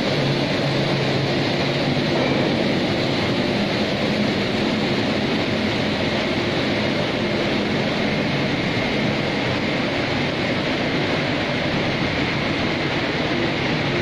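Steady machinery noise of a running wire electroplating line, even throughout, with a low hum and a faint high whine in it.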